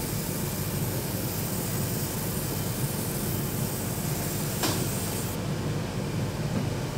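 Airbrush spraying paint: a steady hiss of compressed air over a low hum, the high hiss cutting out about five seconds in. There is a single click shortly before that.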